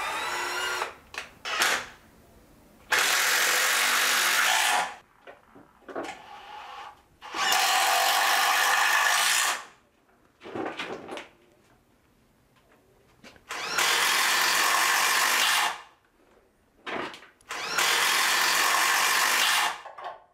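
Hilti cordless drill running in four bursts of about two seconds each, with a few short blips between, working pilot holes and fasteners into a wooden mud sill.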